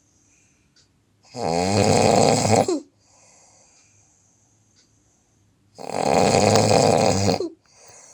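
A sleeping person snoring loudly: two long snores about four and a half seconds apart, with faint breathing between them.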